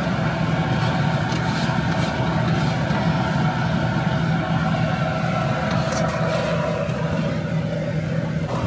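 Metal spatulas scraping and chopping fried rice noodles on a steel griddle, with a few sharper scrapes about six seconds in and near the end. Under it runs a steady low mechanical hum.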